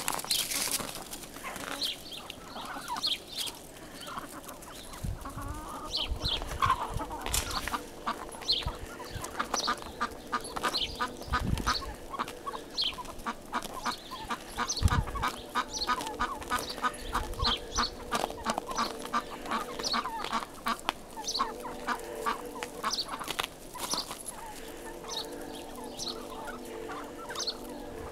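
A flock of chickens clucking and calling as a herding dog moves them: many short calls throughout, with a long run of rapid clucks through the middle.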